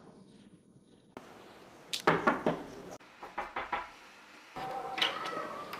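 Knocking on a wooden front door: two quick runs of sharp raps about a second apart.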